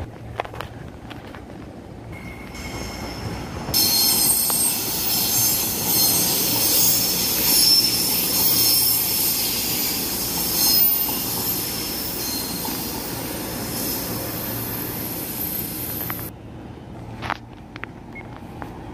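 Train wheels squealing against the rails: several high, steady tones held for about twelve seconds, starting abruptly a few seconds in and cutting off suddenly near the end, over the train's low rumble.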